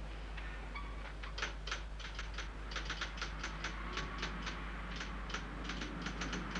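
Typewriter being typed on: quick, irregular keystrokes, about six or seven a second, starting about a second in, over a steady low hum.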